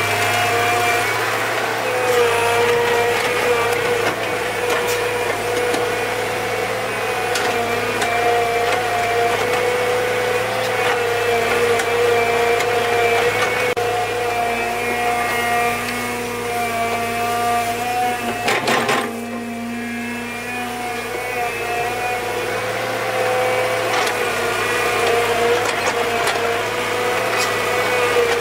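A motor running steadily with a constant hum and whine, its pitch wavering a little. A short knock comes about nineteen seconds in, and the sound drops back briefly after it.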